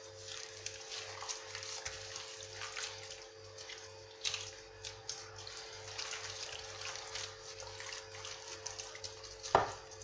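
Gloved hands squelching and rubbing an oily marinade into a whole sea bass in a glass baking dish: irregular wet squishes and slaps, with a sharper knock near the end. A steady low hum runs underneath.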